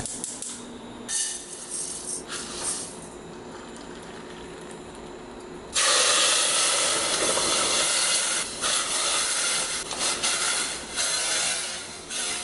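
Water poured from an electric kettle into a stainless-steel saucepan: a loud, steady rushing hiss that starts about six seconds in and runs almost to the end. Before it, a few soft knocks of pot handling.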